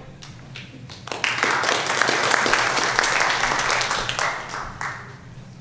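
Congregation applauding: a burst of clapping starts about a second in, holds for about three seconds, then dies away.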